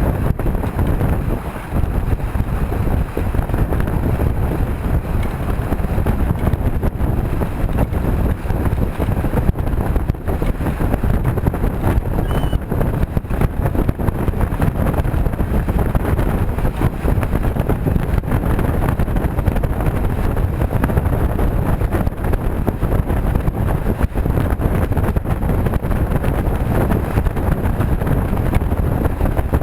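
Steady gusty wind buffeting the microphone aboard a small sailboat moving fast under sail.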